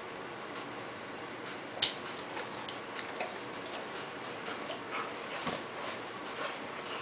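A dog mouthing and chewing a rubber ball: irregular scattered clicks of teeth on the ball, with one sharper, louder click about two seconds in.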